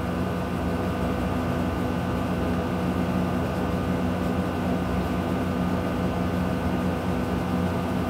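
A steady mechanical hum with several constant tones and no change in level: the background drone of a running room appliance.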